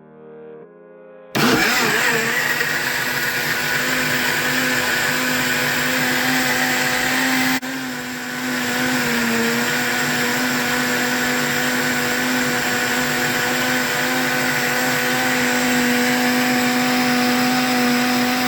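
Silvercrest countertop blender motor running steadily as it blends berries into a smoothie. It starts about a second in; near the middle its hum dips and its pitch sags briefly as the fruit loads the blades, then it settles back.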